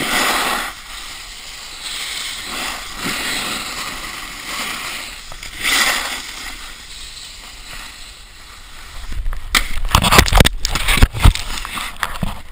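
Snowboard sliding and scraping over snow, a steady hiss, heard through the action camera's microphone. From about nine seconds in, heavy low rumbling buffeting and sharp knocks take over as the loudest sound.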